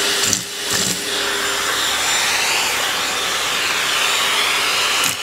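Vacuum cleaner running steadily, its whine wavering slowly in pitch, with two brief bumps in the first second.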